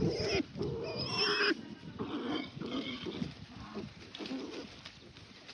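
Pigs calling in a string of short pitched squeals and grunts, loudest in the first second and a half, then fainter.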